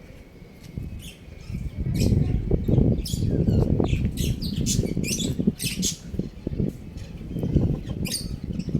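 Short, sharp, high-pitched bird chirps come every second or so over a loud, low rumbling noise that swells about two seconds in.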